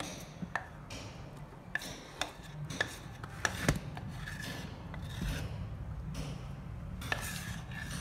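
A metal spoon scraping and clinking against a steel container while scooping thin cake batter out into foil moulds. There are several sharp taps in the first half, then longer scraping strokes.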